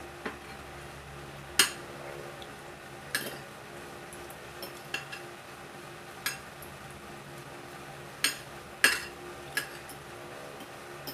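Metal fork and spoon clinking and scraping against a ceramic plate while eating fried fish, in about ten sharp, irregularly spaced clinks. A steady low hum runs underneath.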